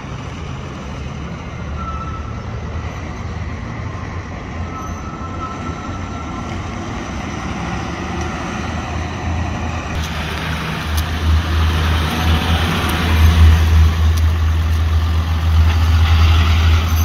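Dodge Ram 3500 dually pickup truck driving slowly, its low engine sound growing louder over the second half as the truck comes close.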